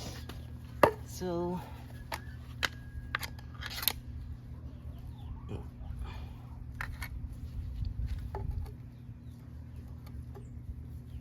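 A few sharp clicks and light knocks of metal parts being handled, over a steady low hum. The first click, a little under a second in, is the loudest.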